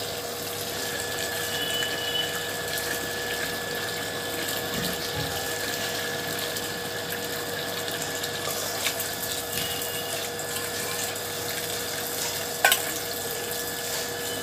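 Water pouring steadily from a pipe into a steel bowl and splashing as cut fish pieces are rinsed by hand, with a steady hum underneath. One sharp clink near the end.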